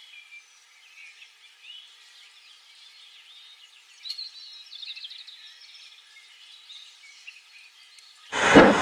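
Faint outdoor ambience with small birds chirping and twittering. Near the end, a loud train engine sound starts abruptly.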